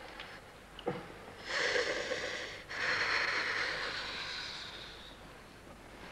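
A woman in labour breathing hard through the pains: two long, heavy breaths, the first about a second and a half in, the second longer and fading away. A short knock just before them.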